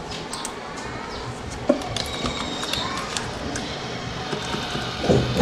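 Computer keyboard keys and mouse clicking in short taps over room noise with faint distant voices, and a louder knock-like sound near the end.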